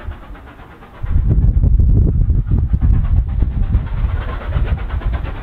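Steam locomotive hauling a train and working hard, its exhaust puffing, under a loud uneven low rumble that jumps up about a second in.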